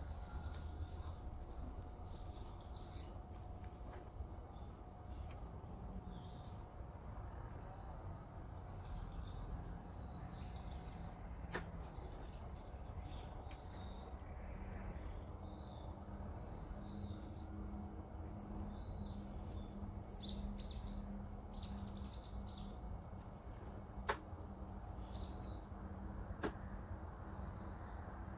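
Insects chirping in a fast, even pulse that keeps on throughout, with fainter fluttering chirps underneath and a low hum. Three sharp clicks stand out, about 12 s in and twice near the end.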